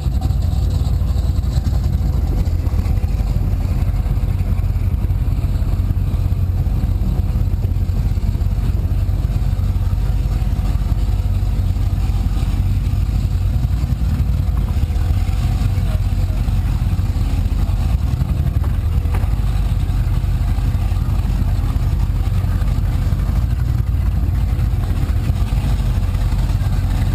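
Powerboat engine running at low speed through a channel, a steady deep rumble heard from the boat's own deck.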